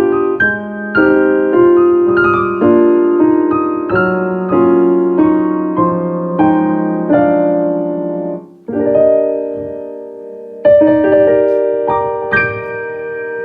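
Solo piano playing a slow melody over sustained chords. The sound briefly dips about nine seconds in, and a loud chord about a second and a half later rings on under a few higher notes.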